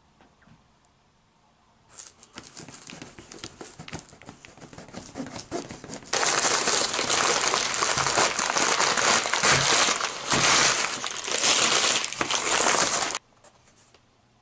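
Packing paper being crumpled and pulled out of an opened cardboard shipping box: light crackling at first, then loud steady crinkling and rustling from about six seconds in, which stops suddenly near the end.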